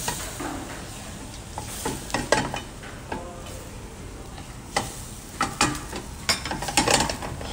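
Bolognese ragù of ground beef and chopped tomato sizzling in a frying pan over a gas flame while being stirred with a spatula. Scrapes and clicks of the spatula against the pan sound through it, most often from about five to seven seconds in.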